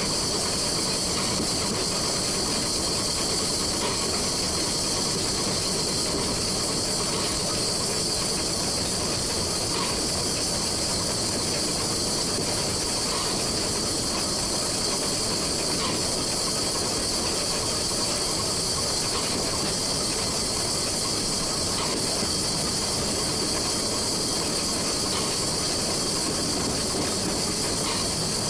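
Steam locomotive built in 1925 by La Meuse, heard from the cab while running: a steady hiss of steam over the rumble of the train on the track, with a few faint clicks from the rails.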